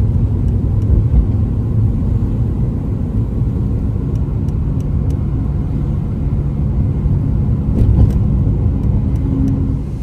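Steady low road rumble inside a moving car, tyres on asphalt and engine together, with a few faint ticks.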